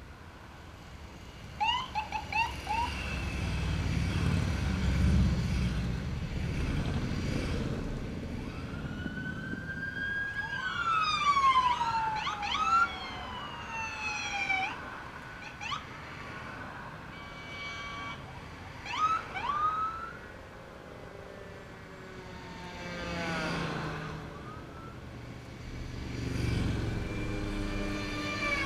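Police car siren giving short chirps and sweeping wails as an escort patrol car passes, with the engines of passing vehicles rumbling by.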